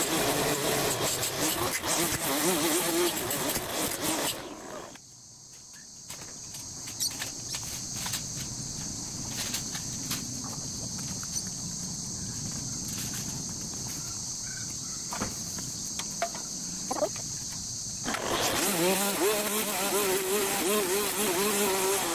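Petrol line trimmer running at full revs through thick grass, its pitch wavering under load, until it drops away about four seconds in. For some fourteen seconds only a steady high buzz with scattered small clicks is left, then the trimmer is back at full revs near the end.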